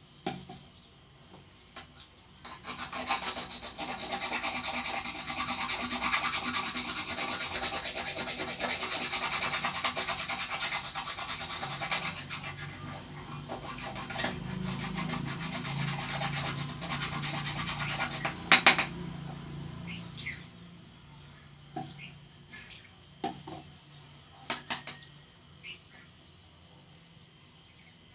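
Steady abrasive rubbing on metal, like sanding or rasping a rusted surface, running for about sixteen seconds and then stopping, followed by a few light, scattered clicks and taps.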